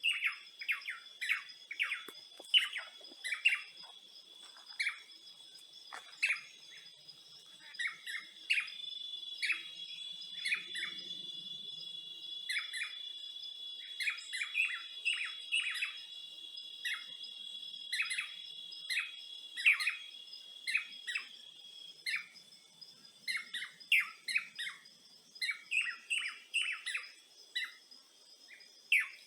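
Songbirds chirping, many short quick calls, often several a second, over a steady high-pitched insect drone.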